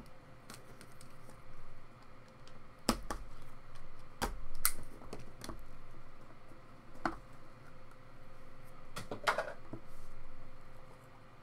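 Hands handling and opening a 2016 Panini National Treasures trading-card box: scattered sharp taps and clicks of cardboard, with a longer scrape a little after nine seconds.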